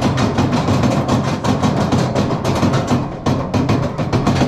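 Vekoma mine train coaster clattering along its track: a fast, continuous run of clicks over a steady low hum.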